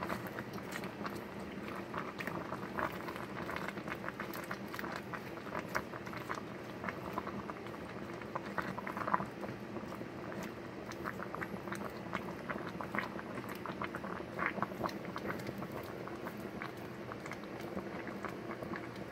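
A pot of vegetable soup boiling, the broth bubbling steadily with frequent small irregular pops, while a plastic spatula stirs the sliced gourd.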